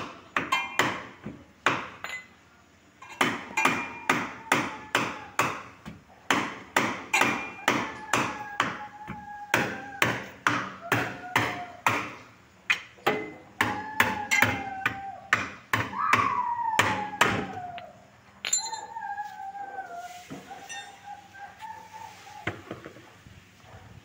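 Repeated hammer blows on the steel wheel and brake drum of a car's jammed rear wheel, two or three a second with a short metallic ring, meant to break the grip of brake shoes stuck to the drum. The blows stop about eighteen seconds in, giving way to fainter taps.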